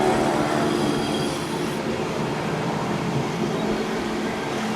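Boeing Stearman biplane's radial engine and propeller drone fading as the aircraft moves away, its steady pitched note giving way to a broad, even rumble.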